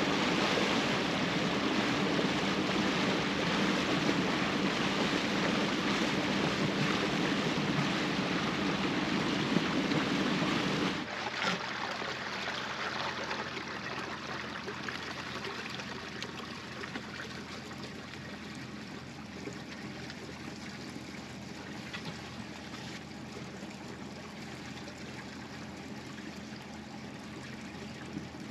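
Water rushing and trickling along a sailboat's hull, over a steady low hum. About eleven seconds in it drops suddenly to a quieter, gentler trickle of water past the hull.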